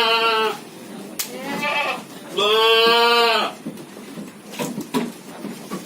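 Long-eared goat bleating, begging to be fed: one long bleat ends about half a second in and another of about a second follows midway. A few sharp clicks come near the end.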